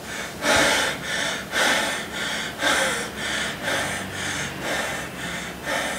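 A man breathing heavily in and out through his mouth, in short rhythmic huffs about twice a second.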